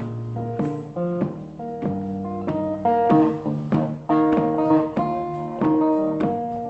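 Acoustic guitar fingerpicking a blues tune, a steady run of plucked notes.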